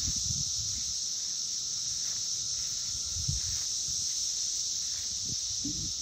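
Periodical cicadas chorusing en masse: a steady, unbroken high-pitched drone.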